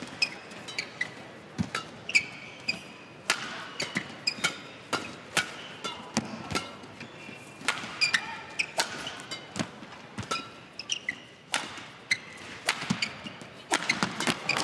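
Badminton rally: sharp smacks of rackets striking the shuttlecock, traded back and forth every second or so, with shoes squeaking and feet thudding on the court between shots. The hits and footfalls come thick and fast near the end.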